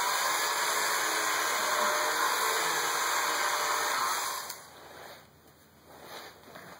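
Eastman Chickadee electric rotary shear running as it cuts through denim, a steady motor whine whose pitch dips and rises a little under the load of the cloth. The motor stops about four and a half seconds in, leaving faint fabric rustling.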